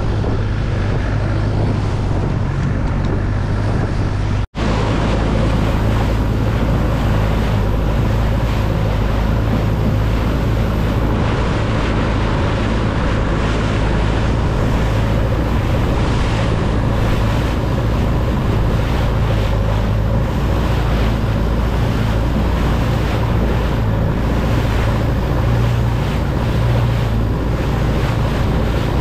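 Wooden longtail boat's engine running steadily at speed, with water rushing and splashing along the hull and wind buffeting the microphone. The sound cuts out for an instant about four and a half seconds in.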